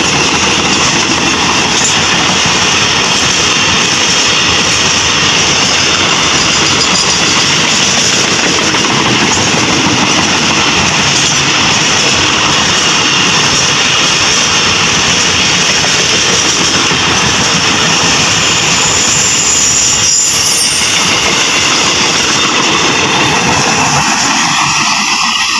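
Container freight train's wagons rolling past at close range: a loud, steady rush of steel wheels on rail that eases off near the end as the last wagons go by.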